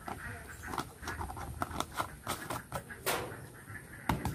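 Screw-on lid being twisted shut by hand on a glass jar, giving a run of irregular small clicks and scrapes.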